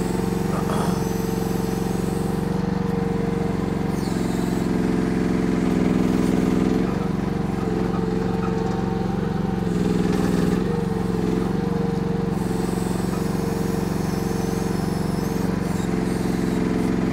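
Gasoline engine of a KYMRON YH14 mini excavator running steadily while the machine digs with its boom and bucket. The engine note swells briefly about six and ten seconds in.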